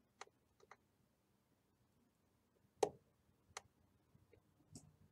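Computer mouse clicking: a handful of sharp, separate clicks, including a quick pair under a second in, with the loudest a little under three seconds in.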